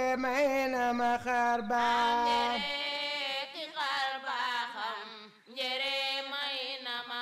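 A solo voice singing a slow, chant-like melody in long held notes with a wavering vibrato and sliding ornaments, pausing briefly about five seconds in.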